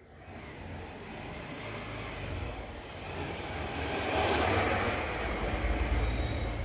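A vehicle's engine rumble and rushing noise, swelling over several seconds and staying loud toward the end.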